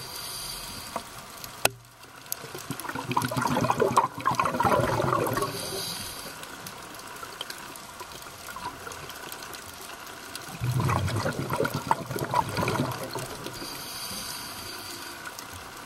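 Scuba regulator breathing heard underwater: two long bursts of bubbling exhaust bubbles, with short hissing inhalations between them. A single sharp click a little under two seconds in.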